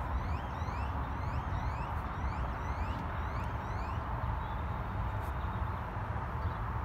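Toyota Tundra's 5.7-litre i-FORCE V8 idling steadily. Over the first four seconds or so there is also a fainter string of short, high, rising chirps, about two a second.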